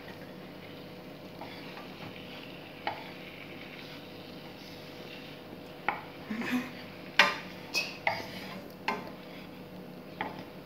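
Crushed garlic and ginger sizzling faintly in oil in a nonstick frying pan while a wooden spatula stirs them. From about six seconds in the spatula knocks and scrapes against the pan in a quick run of taps, the loudest a little after seven seconds.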